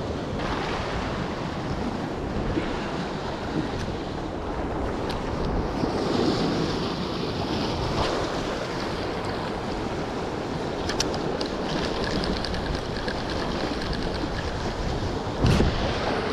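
Surf washing over a rocky shore, with wind buffeting the microphone; a loud thump about a second before the end.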